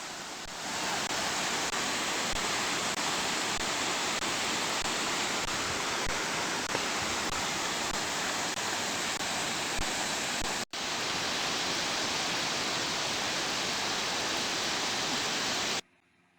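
Steady rushing of a waterfall, with falling water making an even noise. It breaks for an instant about ten and a half seconds in and cuts off suddenly near the end.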